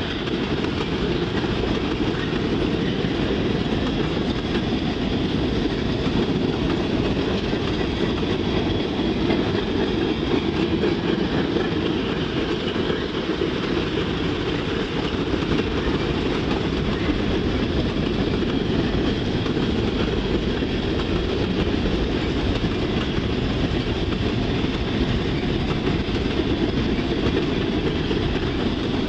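Freight train cars, tank cars and then boxcars, rolling steadily past at close range: steel wheels running on the rails in a continuous, even noise.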